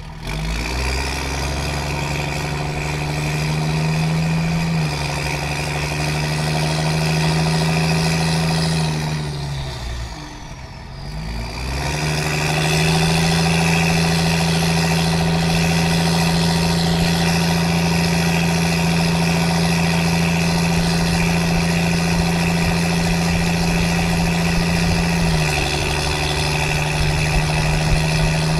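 Cummins 5.9-litre 12-valve straight-six turbodiesel in a 1994 Dodge 3500 pickup, heard through its exhaust pulling away and accelerating. About ten seconds in the engine note sinks and comes back, then holds steady at cruise, stepping down once near the end.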